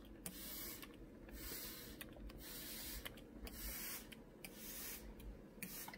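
Plastic trigger spray bottle misting water: a quick run of short hissing spritzes, about two a second.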